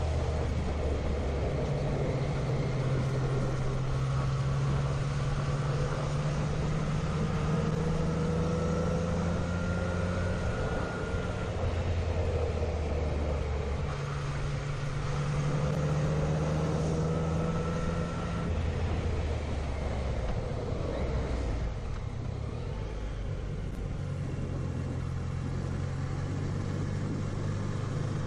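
Motorcycle engine running under way, with wind and road noise. The engine note steps up and down every few seconds as the bike accelerates, shifts and eases off through the bends.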